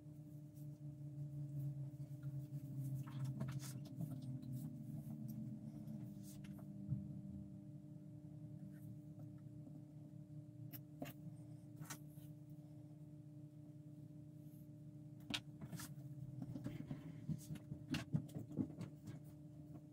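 Faint small handling noises over a steady low electrical hum: scattered light taps, clicks and rubbing from hands and tools working on a plastic model while decals are laid on, growing busier near the end.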